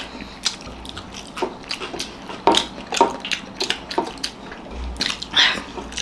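People eating fast at a table: scattered small clicks and clinks of plates, with wet eating noises in between.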